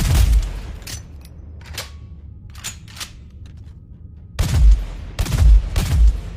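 Fieldmaster HR-10 rifle sound effect: a shot dies away at the start, a few sharp clicks come in a lull, then two loud blasts of gunfire about a second apart near the end.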